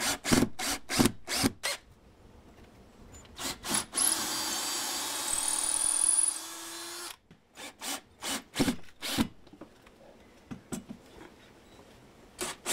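Cordless drill driving screws to fasten a door jamb shield plate to the door frame: quick trigger bursts at first, a steady run of about three seconds in the middle, then more short bursts.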